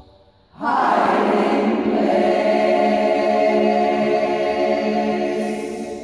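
Choir singing: after a brief pause, the voices come in together about half a second in on a chord and hold it steadily, the sound slowly dying away near the end.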